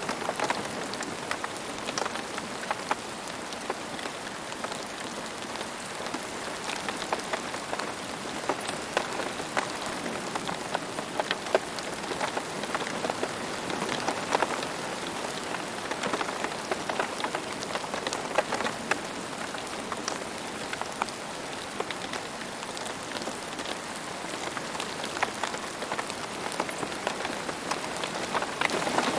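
Steady rain falling on a hard surface, a constant hiss thick with many individual drops ticking and splashing.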